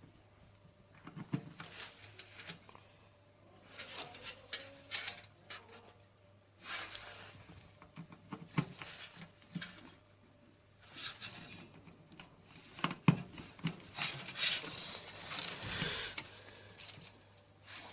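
Hands working on computer parts and cables: bursts of light clicks, taps and rustling with short pauses between them, and one sharper click about thirteen seconds in.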